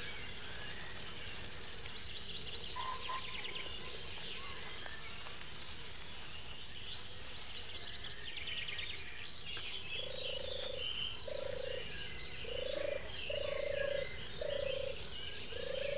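Outdoor nature ambience with faint high chirping throughout; from about ten seconds in, a frog croaks six times in short, regularly spaced calls.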